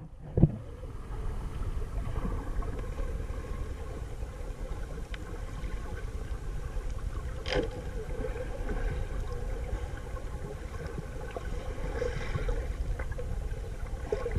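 Muffled underwater noise picked up by a submerged camera: a steady low rumble with a sharp knock just after the start and a brief click about halfway through.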